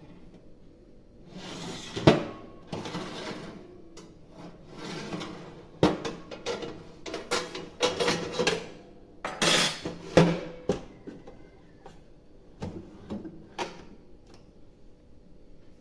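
Irregular knocks, clicks and light clatter of kitchen items being handled, with a few short scrapes; the sharpest knock comes about two seconds in.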